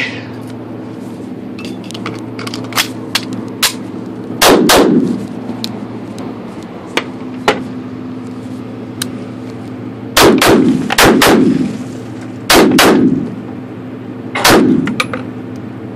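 Pistol shots fired in quick pairs, each loud report ringing out in the enclosed range, with a few fainter sharp cracks between them over a steady background hum.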